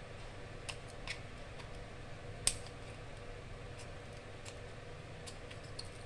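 Scissors snipping the thin aluminium flange of a denture stock tray: a few sharp clicks, the loudest about two and a half seconds in.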